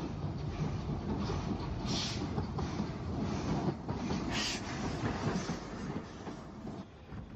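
Steam-hauled passenger train running along the line, its wheels clattering over the rail joints, with two short hisses about two and four seconds in. The sound drops away a little near the end.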